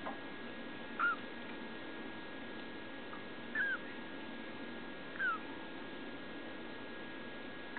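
Newborn kittens mewing: three short, high, squeaky cries that fall in pitch, spread a couple of seconds apart.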